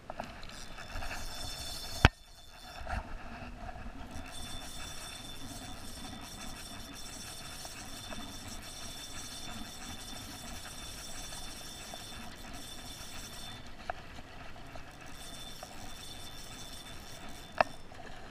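Spinning reel being cranked against a hooked salmon, its gears whirring steadily, with a short pause after about two seconds and another near the end. A sharp click about two seconds in, and a smaller one near the end.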